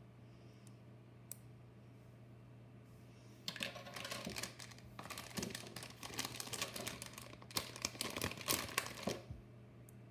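Small plastic items handled by hand: a single click, then a run of clicks and rustling that starts about three and a half seconds in and stops about a second before the end.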